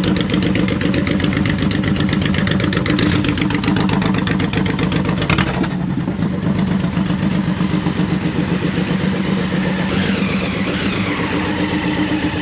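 Motorcycle engines idling close by, a steady pulsing run, with a single sharp click about five seconds in.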